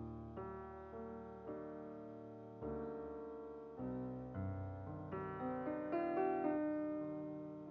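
Slow, soft solo piano background music: single notes and chords struck every half second or so and left to ring out.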